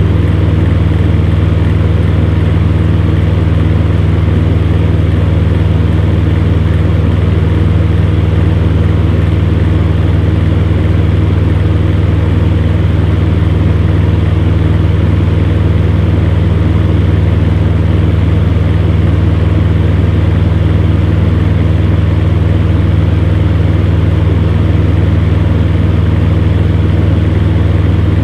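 Electric fan heater running steadily: a constant low hum with a few steady tones above it and an even whir of moving air.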